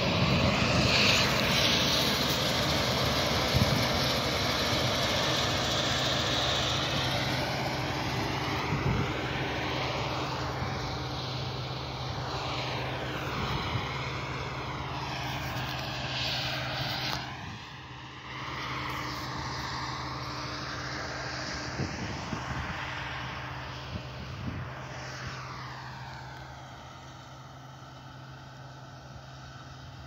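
Combine harvester's engine and threshing machinery running steadily while it cuts wheat, with a low drone under a broad rushing noise, growing fainter as the machine draws away.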